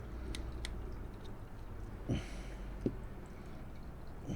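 Parts of a cheap fishing reel being handled during a teardown: two light clicks, then two soft knocks a little after two seconds in and just before three seconds in.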